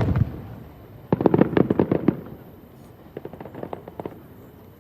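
Fireworks going off: a single sharp bang at the start, then a rapid volley of bangs about a second in, and a fainter run of crackling pops near the end.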